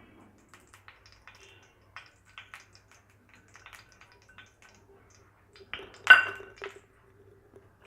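Metal spoon scooping ghee and clinking against the pan and its container, with small clicks and scrapes throughout. About six seconds in comes one louder metallic clink that rings briefly.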